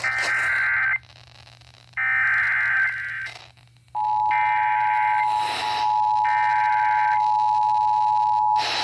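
Emergency Alert System activation on FM radio: four screechy SAME header data bursts of about a second each, the digital code that announces a severe thunderstorm warning. From about four seconds in, the steady two-tone EAS attention signal starts and sounds under the later bursts, as two stations relay the same alert at once.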